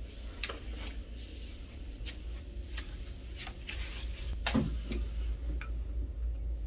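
Handling noise: scattered light clicks and small knocks, with one louder knock about four and a half seconds in, over a steady low hum.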